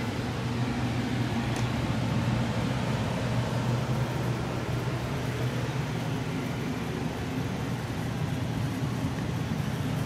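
2003 Bryant 80% gas furnace's blower running steadily in cooling mode: an even low hum with a light rush of air.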